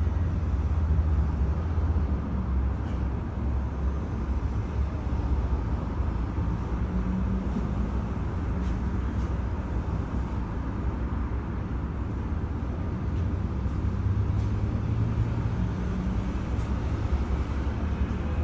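Inside an LM-99AVN tram standing still: a steady low rumble and hum inside the car, with road traffic passing outside.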